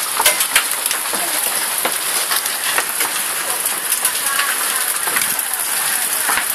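Hailstorm with heavy rain: a dense, steady hiss of falling rain with frequent sharp, irregular ticks of hailstones striking.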